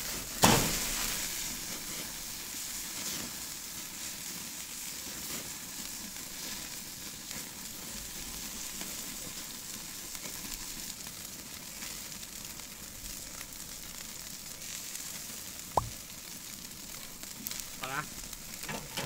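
Tomahawk steak sizzling over hot charcoal in its final crisping sear, basted with garlic butter. A sudden loud flare of sizzling comes about half a second in and settles into a steady sizzle, with one sharp click near the end.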